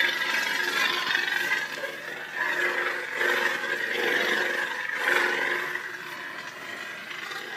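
Lightsaber sound board playing a Kylo Ren–style sound font: a rough, crackling hum from the hilt's speaker that swells and fades as the saber is swung.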